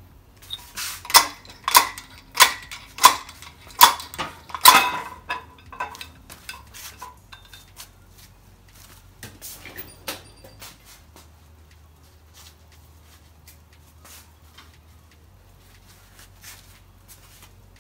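Slide hammer pulling a cam bearing out of a Ford 5.0L small-block: six sharp, ringing metal-on-metal clanks less than a second apart as the weight slams into its stop, followed by lighter clinks of metal.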